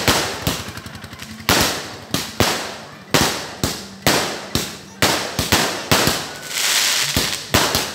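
Fireworks going off overhead in quick succession, a sharp bang about every half second. There is a stretch of crackling about a second in, and a fizzing hiss near the end.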